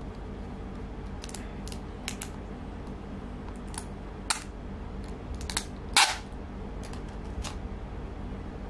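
Scattered light clicks and taps of makeup containers and tools being handled, about nine in all, the loudest about six seconds in, over a steady low hum.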